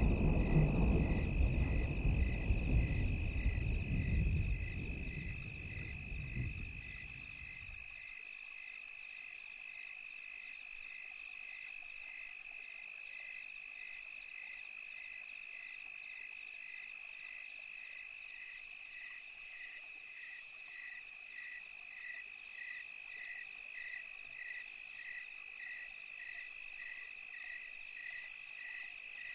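Night ambience: a low rumble of thunder dies away over the first several seconds. After it, a steady high insect trill continues, with a cricket-like chirp repeating a little over once a second.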